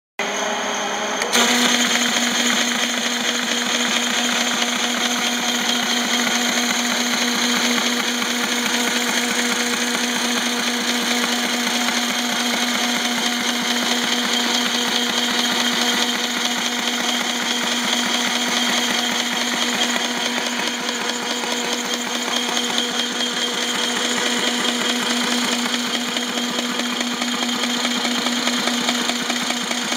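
Faltex 711 paper folder running and z-folding sheets: a steady mechanical whir with a constant hum and a fast, even clatter of paper feeding through. It gets louder about a second in, then runs evenly.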